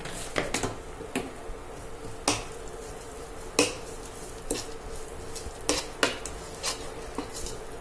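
A steel spoon stirs and scrapes a tadka of fried onions and chillies in ghee in a ceramic-coated frying pan, knocking against the pan in about nine sharp clinks spread unevenly through the stirring. A faint steady hum runs underneath.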